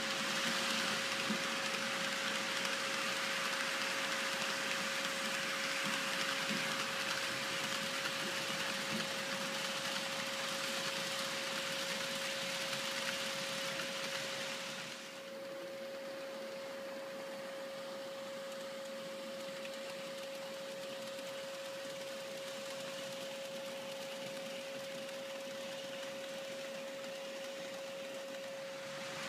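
Model freight train running along the layout track: a steady whirring rattle of wheels on rail and motor, with a constant high hum underneath. The rattle drops away sharply about halfway through, leaving the steady hum.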